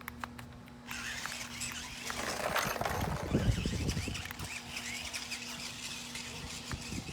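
Toy remote-control stunt car driving and tumbling: its small electric motors whir and its wheels rumble, with many short high squeaks. It starts about a second in and is loudest from about two to four seconds in.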